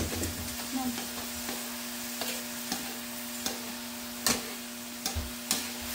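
Chicken breasts sizzling as they fry, a steady hiss with a few sharp clicks scattered through and a steady low hum underneath.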